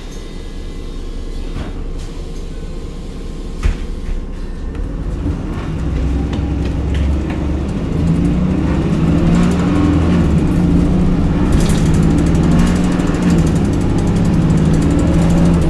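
Heuliez GX 337 city bus, heard from inside the cabin, pulling away and accelerating through its ZF automatic gearbox. The engine note grows louder over the first several seconds and then holds under load. There is a brief knock about four seconds in.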